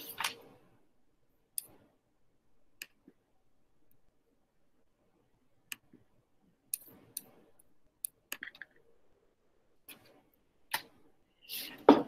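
Irregular sharp clicks and small knocks, about a dozen spread out with quiet gaps between them, the loudest just before the end.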